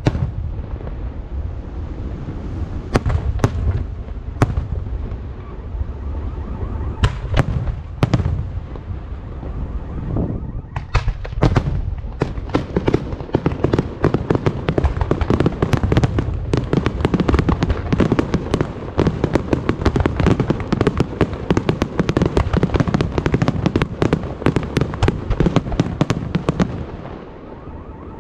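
Aerial firework shells bursting: a few separate booms during the first ten seconds, then from about eleven seconds a dense barrage of rapid bangs and crackling that eases off near the end.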